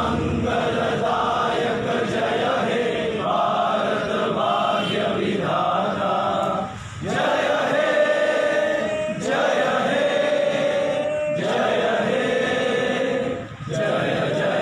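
A crowd of people singing a patriotic Indian song together, unaccompanied, in long held phrases with brief breaks between them.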